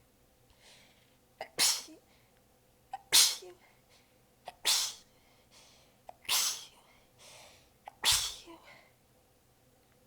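A person sneezing five times in quick succession, one about every one and a half seconds, each sneeze preceded by a short sharp intake, with softer breaths between: a sneezing fit from an exhausted sneezer, the sneezes partly held back.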